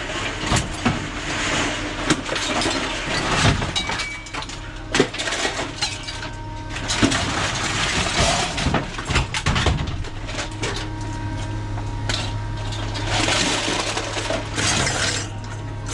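Repeated clatters and knocks of scrap being handled and loaded, over the low steady hum of an engine running, which grows stronger about ten seconds in.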